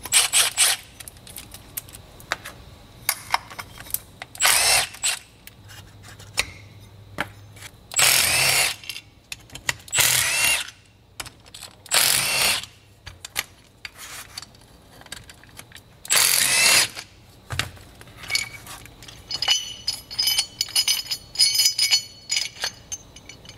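Compact cordless impact wrench spinning out the 13 mm pulley bolts on a power steering pump, in about six short bursts, with small metal clinks of bolts and parts between them.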